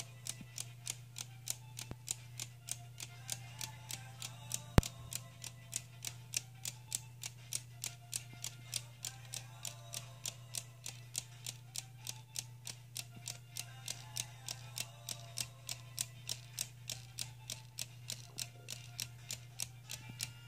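Escapement of a 3D-printed plastic tourbillon clock ticking steadily, about three ticks a second, with one louder click about five seconds in.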